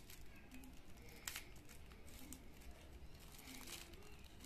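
Faint crinkling and rustling of a small white packet being handled and opened by hand, with a sharper crackle about a second in.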